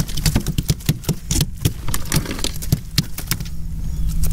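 Quick, irregular clicks, taps and rattles of a fluke being handled in a landing net against a plastic kayak deck, over a steady low hum.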